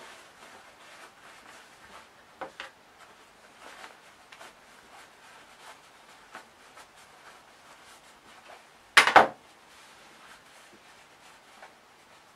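Hands handling a sewn cotton fabric glasses case as the lining is pushed inside it: faint rustling and small taps. About nine seconds in there is a short, loud double noise, about half a second long.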